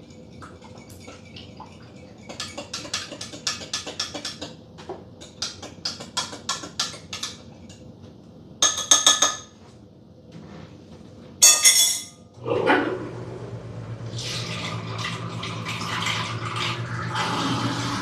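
Kitchen handling sounds: a spoon tapping and clinking in a cup while yeast, sugar and warm water are stirred, then two sharp clatters. For the last five seconds or so there is a steady rushing noise with a low hum underneath.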